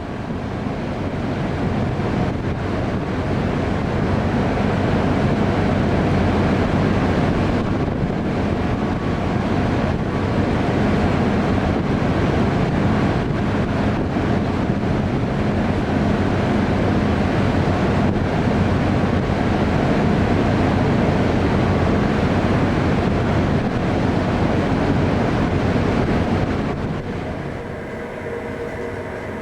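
Gale-force wind rushing over the microphone on a ship at sea, over a steady low drone of the vessel's machinery; the wind eases near the end.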